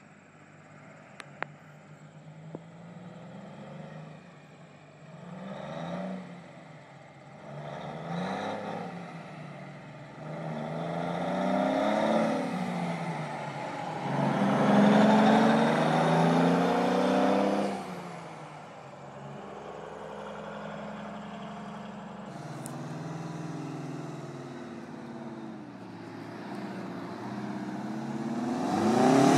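Diesel engine of a cabover semi-truck accelerating and driving past, its pitch rising and dropping several times. It is loudest around the middle, then settles to a steadier, lower running sound, and another truck's engine builds up near the end.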